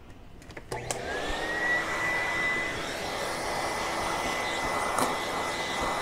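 Vacuum cleaner switched on about a second in, its motor whine rising in pitch as it spins up and then holding steady over a constant rushing roar. A dusting brush attachment is sucking dust out of an open power supply's circuit board.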